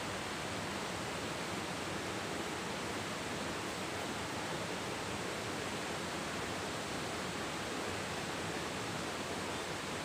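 Steady, even rush of flowing creek water, unchanging throughout.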